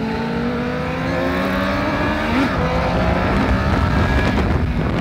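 Benelli TNT899's inline three-cylinder engine pulling as the motorcycle accelerates, its pitch climbing steadily. The pitch dips briefly at a gear change about two and a half seconds in, then climbs again.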